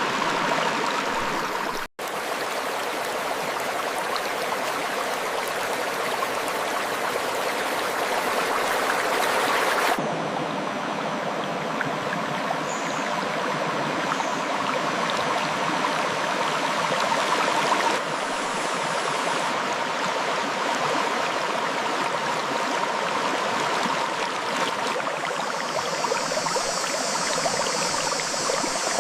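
River water flowing and splashing over rocks in a steady rush. There is a momentary break about two seconds in, and the sound of the water changes abruptly twice.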